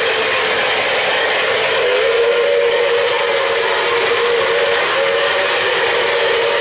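O-gauge model trains running on three-rail track: a steady rumble of wheels and motors, with a held pitched tone that steps slightly higher about two seconds in.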